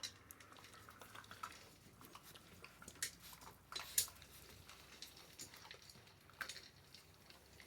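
Faint, scattered clicks and rustles of puppies moving about and chewing, with the sharpest click about four seconds in.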